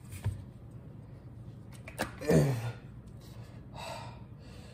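A short wordless vocal sound about two seconds in, falling in pitch, between faint clicks of things being handled on a countertop, with a brief soft hiss near the end.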